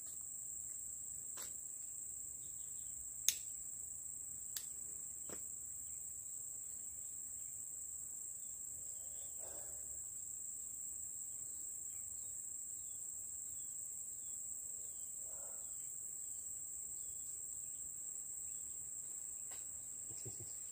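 Steady high-pitched drone of forest insects. A few sharp clicks come in the first five seconds, the loudest about three seconds in.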